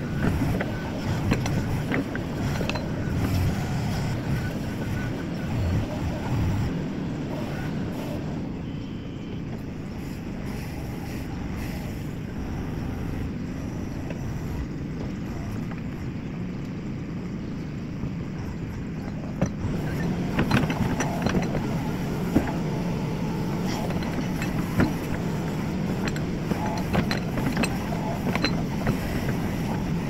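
JCB 4CX backhoe loader's diesel engine running while its front bucket scrapes and pushes soil. The engine eases off about eight seconds in and works harder again near twenty seconds, with sharp knocks from then on.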